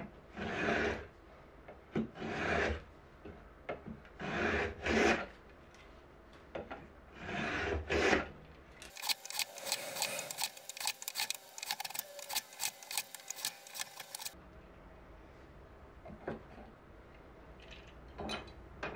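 Hand plow plane cutting a groove along a wooden frame piece, one shaving stroke every second or two. About nine seconds in the strokes give way to a fast run of many quick, sharp strokes lasting about five seconds, followed by a few light knocks.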